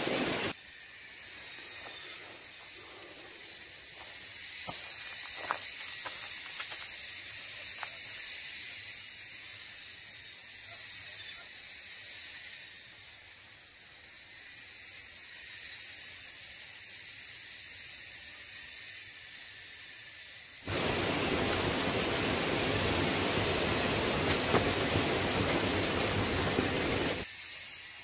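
Woodland outdoor ambience: a steady high-pitched hiss with a few faint ticks. About two-thirds of the way through, a louder, even rushing noise starts suddenly and stops just as suddenly some six seconds later.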